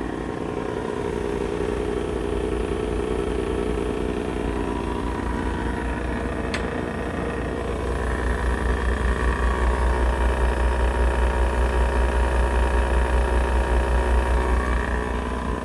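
Heat pump outdoor unit running in its higher stage: a steady compressor hum with fan noise. About eight seconds in, a higher tone joins and the sound starts to pulse rapidly. The owner suspects the compressor may be a little noisier than it should be.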